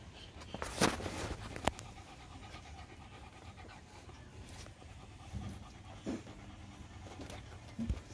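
A puppy panting, with two sharp knocks in the first two seconds.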